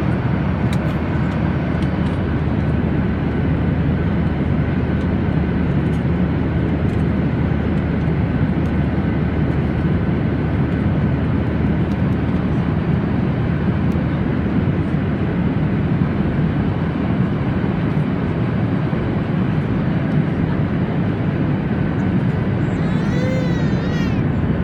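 Steady cabin noise of an airliner at cruise: an even, low rush of airflow and jet engines, with a faint steady whine above it.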